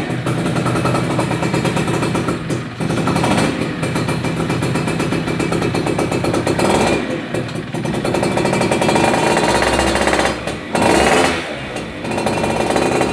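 Yamaha F1ZR's 110 cc two-stroke single-cylinder engine running through a custom aftermarket muffler, coming in abruptly and then revved in repeated blips, so the sound swells and drops several times, with a full, round tone.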